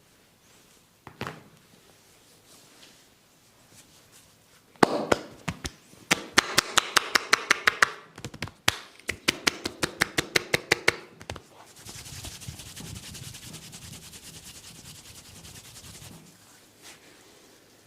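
Hands on a head massage: a single knock, then two quick runs of sharp slaps or taps at about five or six a second, followed by a few seconds of rubbing and scratching.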